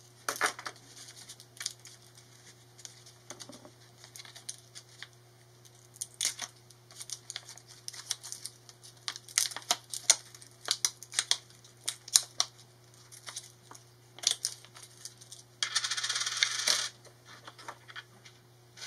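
Plastic blister pack of a CR2032 coin cell being pried and twisted open by hand: irregular crackles and sharp clicks of the plastic, with a harsh rasp lasting about a second near the end as the pack is torn or cut.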